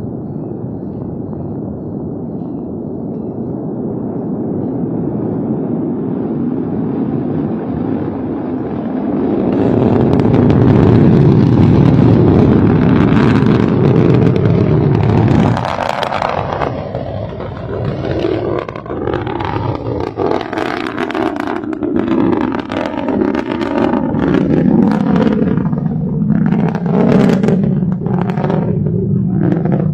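Long March 4C rocket lifting off: the engine rumble builds steadily and is loudest from about ten to sixteen seconds in, then drops sharply and turns to a ragged crackling as the rocket climbs away.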